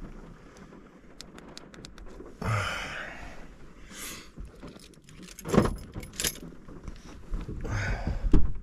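Handling noise: a quick run of light clicks, then several short rustles or scuffs, the loudest about halfway through.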